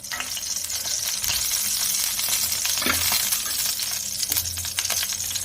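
Ghee heating in a pan on a gas stove, sizzling and crackling steadily, with a few light clicks.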